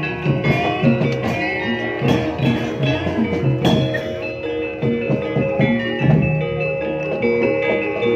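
Gamelan music of the kind that accompanies ebeg dance: struck metallophones ringing in held tones over steady drum strokes.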